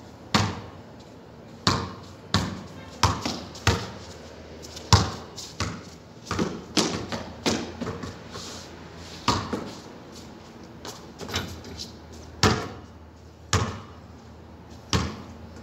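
A basketball bouncing on a concrete court: a string of sharp, irregularly spaced thumps, some louder than others, with a short echo off the surrounding walls.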